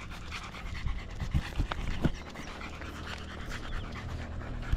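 A dog panting, out of breath from a long walk.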